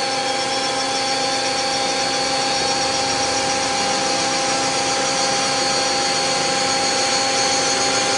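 Mazak Quick Turn 20 CNC lathe spindle running steadily at speed, somewhere between about 1,000 and 2,000 rpm: an even whine made of a few fixed tones over a smooth hiss.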